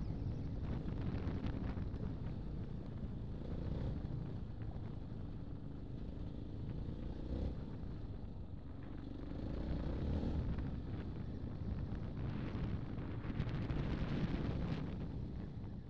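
Motorcycle engine running as the bike rides a gravel trail, the revs rising and falling a few times, heard from on the bike. The sound starts fading out near the end.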